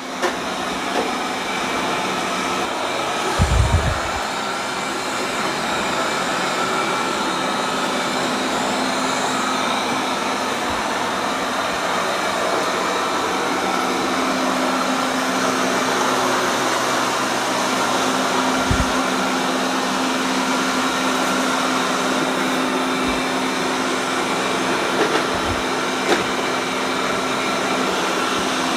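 Robot vacuums (an iRobot Roomba Essential Q0120 and a Tikom L8000) running, a steady whir of suction motors and brushes with a few steady tones in it. A few short low thumps come through, one early and two later.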